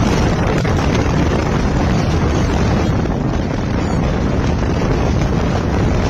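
Wind buffeting the microphone: a loud, steady rushing noise with no pauses.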